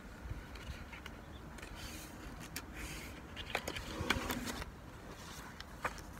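Low background rumble with a few light scrapes and clicks, mostly around the middle, from the pages of a hardcover picture book being handled.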